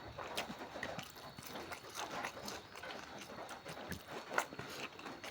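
Soft, irregular mouth sounds of someone eating: chewing with small wet smacks and clicks.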